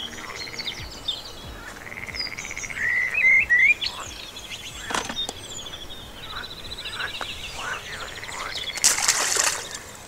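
Small birds singing and calling: varied chirping phrases, with a rapid rattling trill through the middle. A few clicks come about five seconds in, and a short rush of noise comes near the end.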